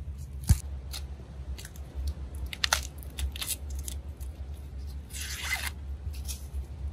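Fresh ears of corn being husked by hand: scattered snaps and crackles as the green leaves are pulled back, with one longer rip about five seconds in.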